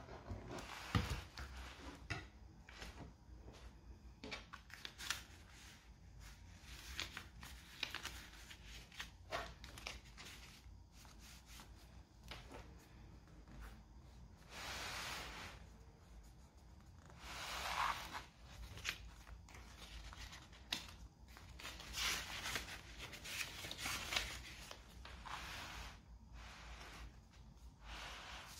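Paper rustling and swishing as hands turn and unfold the thick layered pages, pockets and tags of a handmade junk journal, in irregular strokes with a few light taps.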